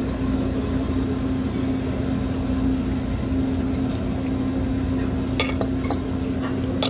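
Restaurant dining-room background: a steady low hum with the light clink of cutlery, glasses and dishes, a couple of sharper clinks in the last two seconds.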